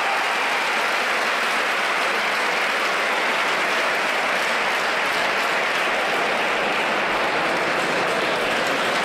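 Crowd applauding, a steady dense clapping that holds at an even level throughout.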